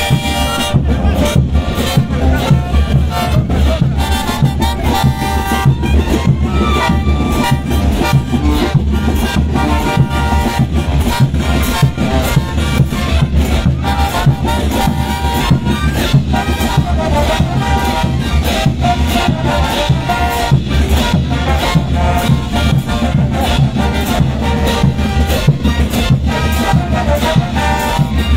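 Bolivian brass band playing live: trumpets and low brass carry the tune over a steady beat with crash cymbals.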